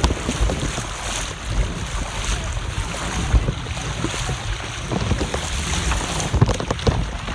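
Strong wind gusting across a phone's microphone, a rough low rumbling over a steady rushing hiss.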